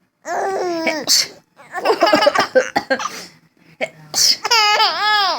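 A woman's exaggerated pretend sneeze, a drawn-out vowel ending in a sharp 'choo' about a second in, followed by a baby laughing in bursts, with a high squealing laugh near the end.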